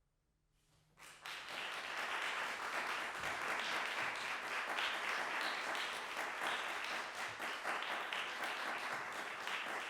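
Brief near silence, then an audience breaks into applause about a second in, with many hands clapping.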